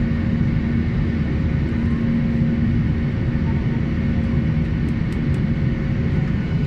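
Airliner cabin noise in flight: a steady drone of engines and rushing air, with a low hum held throughout.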